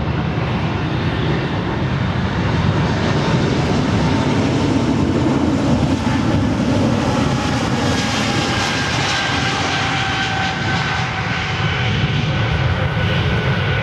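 Airbus A220's Pratt & Whitney geared turbofan engines at high power as the jet rolls along the runway: a loud, steady rush that is fullest as it passes close by, with whining tones that slowly drop in pitch as it moves away.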